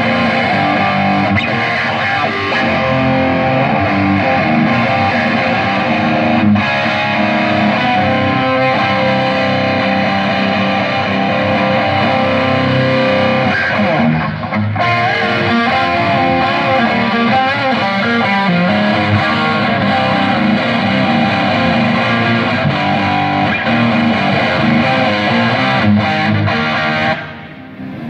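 Distorted electric guitar played through a concert PA during a soundcheck, heard from far out across the open-air venue. It plays continuously and stops abruptly about a second before the end.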